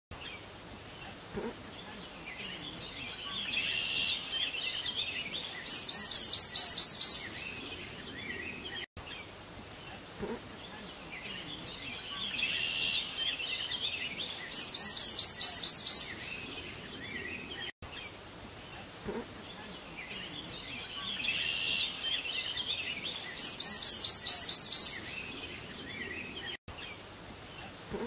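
Looped recording of songbird calls: a soft twittering, then a loud, rapid trill of about a dozen high notes, the same passage repeating about every nine seconds, three times over.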